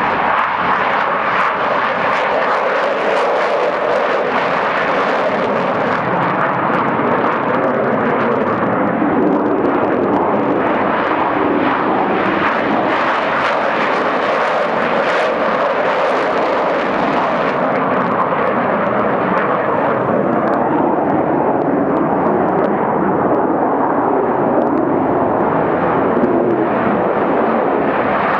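McDonnell Douglas CF-18B Hornet fighter jets' twin turbofan engines at takeoff power on the takeoff roll: a loud, steady jet roar.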